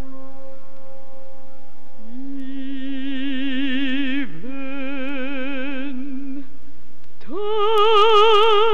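Operatic solo voice singing long held notes with wide vibrato and no words. It comes in about two seconds in over a steady held note, dips briefly in the middle, and near the end slides up into a higher, louder held note.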